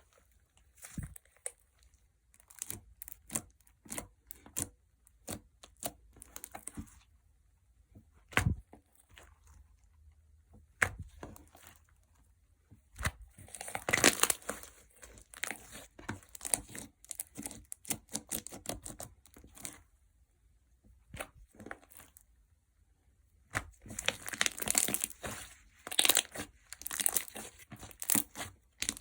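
Clear gel slime worked by hand, making wet clicking and popping sounds. The sounds come in bursts with quiet pauses between, thickest about halfway through and near the end.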